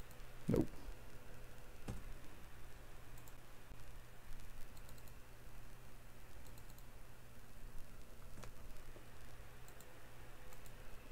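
Computer mouse clicks and keyboard key presses, scattered and soft, with a low thump about half a second in, over a faint steady hum.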